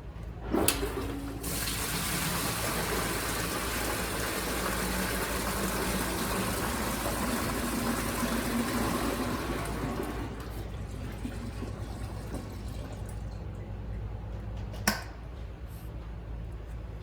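Water rushing and splashing through an industrial liquid vacuum cleaner that separates solids from liquid, over a steady low hum. A sharp click comes about a second in and another near the end, and the rush of water is loudest for the first ten seconds, then eases off.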